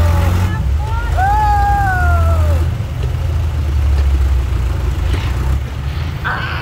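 Jeep engine rumbling at low road speed, heard from on board. A person's long drawn-out call, rising then falling in pitch, comes about a second in.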